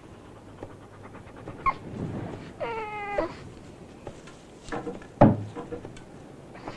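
Newborn Akita puppies whimpering: a short high squeak, then a longer whine that falls slightly in pitch about three seconds in. A sharp knock about five seconds in is the loudest sound.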